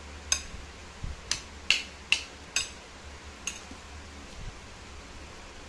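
A metal fork clinking against a bowl as it scoops rice and sardines: six sharp clinks over about three and a half seconds, the loudest in the middle.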